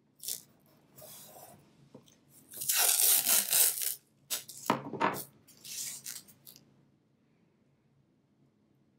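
Blue painter's tape ripping as strips are pulled off the roll and torn. The longest and loudest pull comes about three seconds in, with shorter rips and rubs before and after it.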